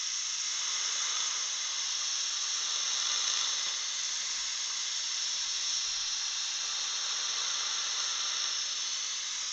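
Dental suction running with a steady hiss, drawing air and water from the mouth while an implant site is rinsed.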